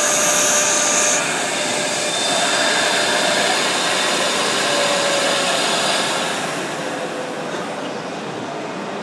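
JWEI RC03 flatbed CNC cutting machine running with a steady, loud rushing noise. A high whine from the cutting head stops about a second in. From about six seconds in, the rushing grows quieter and duller as the machine is being shut down at its control panel.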